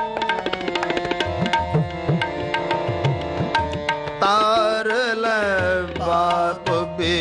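Kirtan accompaniment: tabla playing a quick pattern, its bass drum's strokes bending in pitch, over steady held reed notes. About four seconds in, a wavering, gliding melody line enters over the drumming.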